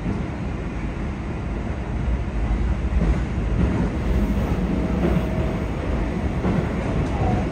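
Running noise heard inside the passenger car of a Yokohama Municipal Subway 4000 series train (Mitsubishi hybrid SiC-VVVF): a steady rumble of wheels on rail, getting a little louder about two to three seconds in.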